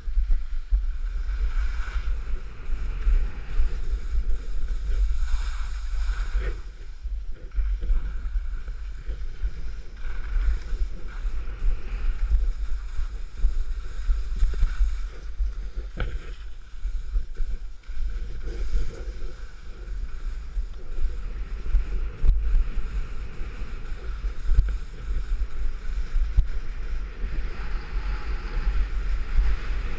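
Wind buffeting the microphone of a helmet or body-worn camera on a skier going downhill: a constant, fluctuating low rumble. Over it is the hiss of skis sliding and scraping over snow.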